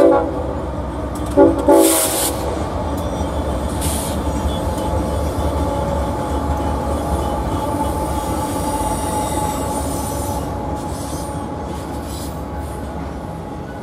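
BNSF diesel freight locomotives sound three short horn blasts in the first two seconds. After that comes the steady rumble of the engines and the double-stack container cars rolling past on the rails, with a faint wheel squeal, fading slightly near the end.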